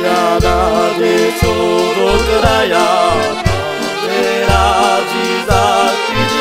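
Folk band music: a wavering lead melody over a bass line of evenly spaced notes, about two a second.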